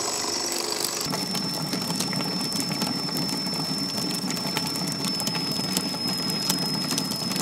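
Food processor running at full speed, chopping wild spinach and curly parsley with ice cubes into a green purée: a steady high motor whine with a lower churning underneath and scattered ticks. About a second in, the whine drops slightly in pitch and the churning grows fuller.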